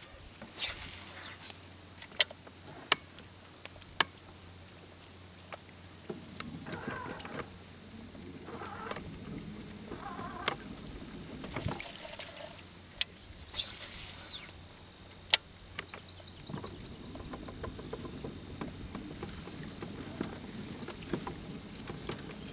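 Fishing tackle at work: scattered sharp clicks from a baitcasting reel and rod, with a few short swishes, as a topwater frog lure is cast and worked across the water. A faint steady hum runs underneath.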